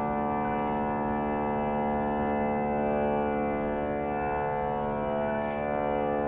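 Organ holding one sustained chord, many notes sounding together and unchanging.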